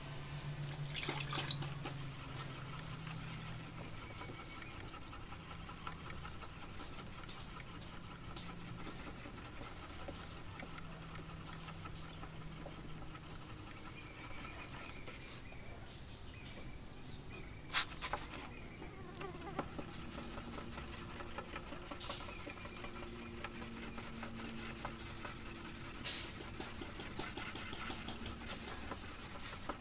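Faint rubbing of a small sanding block worked by hand over a car's wet clear coat, wet-sanding down clear-coat runs, with a few sharp clicks about a second in, past halfway and near the end.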